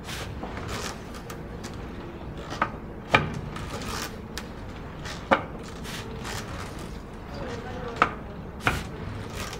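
Cardboard roller rolled back and forth over blotter paper, a soft continuous rolling sound with a few sharp knocks and clicks scattered through.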